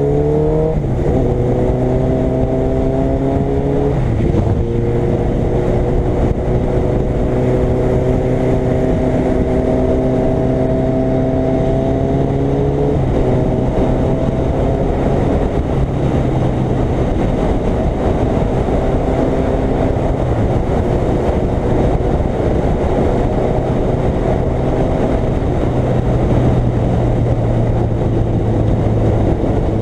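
Suzuki Hayabusa's inline-four engine pulling up through the gears: its pitch climbs and drops at upshifts about a second in, at about four seconds and at about thirteen seconds, then holds at a steady cruise. A constant rush of wind and road noise runs underneath.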